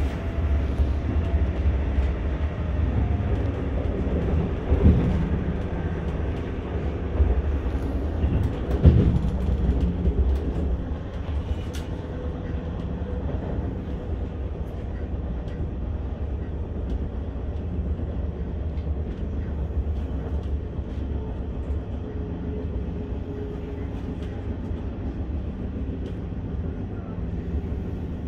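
Passenger train running along the track, its steady low rumble heard from inside the carriage, with two louder knocks about five and nine seconds in. The rumble eases slightly after about ten seconds.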